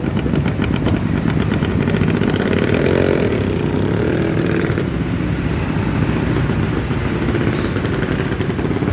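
Bus engine running close by: a loud, steady engine rumble.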